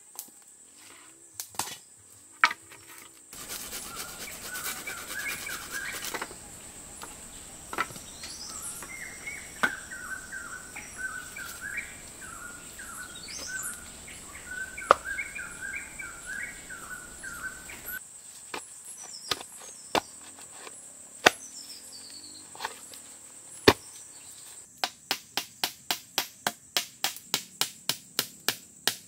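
Outdoor ambience: a steady high insect drone with repeated bird chirps and scattered sharp knocks. Near the end comes a fast, even run of sharp taps, about four a second.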